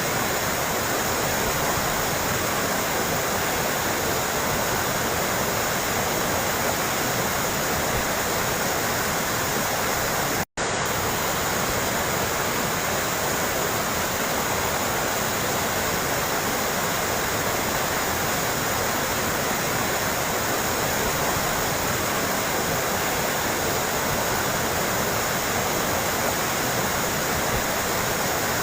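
Running water babbling and splashing steadily, like a small stream or waterfall. It drops out for an instant once, about ten seconds in.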